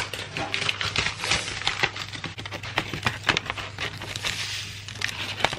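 Granulated sugar being poured into a glass mixing bowl on top of flour: a dense, rapid crackle of falling grains.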